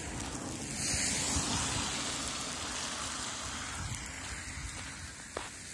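Freezing rain falling with a steady hiss, with wind buffeting the microphone; the hiss swells for a moment about a second in.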